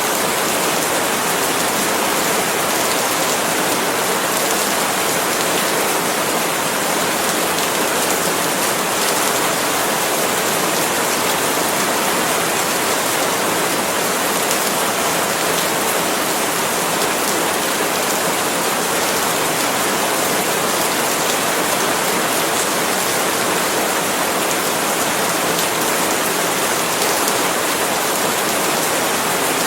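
Steady tropical rain falling on palm leaves, an even, unbroken hiss that holds the same level throughout.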